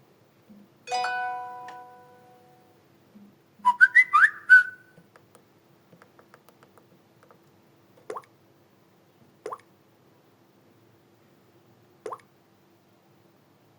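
Short alert tones from a Samsung Galaxy Feel played one after another: a bell-like chime that rings out about a second in, a quick jingle of bright rising notes around four seconds in, then three short rising plop-like blips in the second half.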